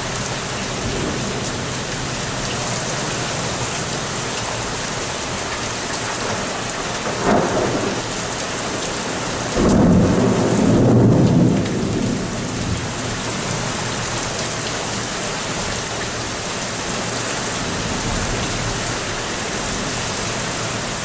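Steady rain-like hiss, with a brief swell a little after seven seconds and a louder low rumble about ten seconds in that fades over roughly two seconds.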